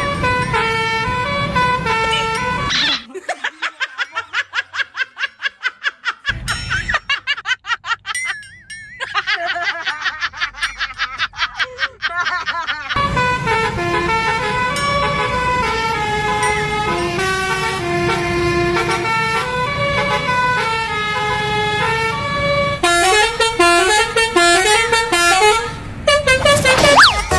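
Multi-note 'telolet' bus air horn playing tunes: a short melody, then rapid staccato toots about four a second for several seconds, then a longer stepped melody that ends in a sweeping pitch glide.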